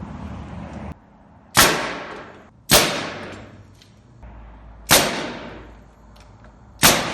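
Pneumatic nail gun firing four nails into wooden floor joist blocking, each shot a sharp, loud crack with a ringing tail, one to two seconds apart.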